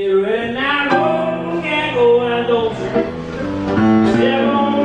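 A man singing through a microphone with live piano accompaniment, holding long sustained notes.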